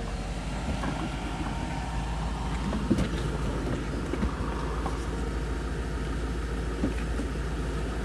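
Heavy off-road truck's engine running steadily, heard from inside the cab, with a few brief knocks and rattles as the truck jolts over the rutted track.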